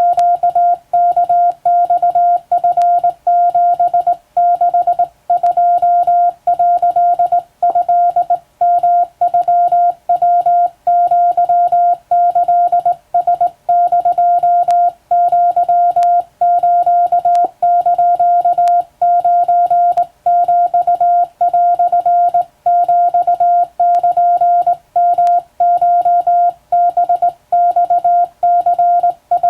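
Morse code sent by hand on a telegraph key and heard as a single steady beep tone keyed on and off in dots and dashes, with short pauses between characters.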